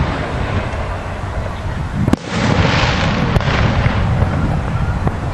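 Aerial fireworks display: a continuous rumble of echoing booms and crackle, with a sharp bang about two seconds in and a lighter one a second later.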